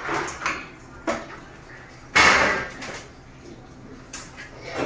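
Butchering a lamb leg on a plastic cutting board: a few short scrapes and knocks of the knife, the chain-mail glove and the meat against the board, the loudest a scrape of about half a second roughly two seconds in.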